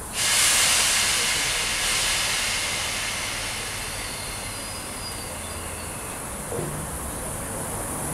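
ScotRail Class 320 electric multiple unit running slowly into the platform: a loud hiss that sets in suddenly at the start and slowly fades, over a low hum, with a faint high squeal about four seconds in.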